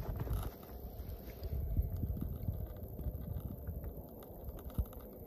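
Wind buffeting the phone's microphone, an irregular low rumble, with a few handling knocks as the phone is panned.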